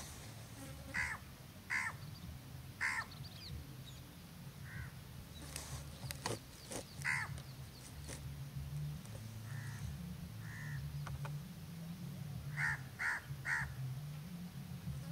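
A crow cawing: short single caws spread through, a few of them fainter, and three in quick succession near the end, over a steady low rumble.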